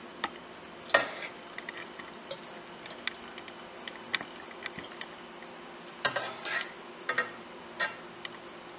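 A kitchen utensil clinking, knocking and scraping against a stainless steel cooking pot in scattered strokes, with a quick cluster of clatter about six seconds in.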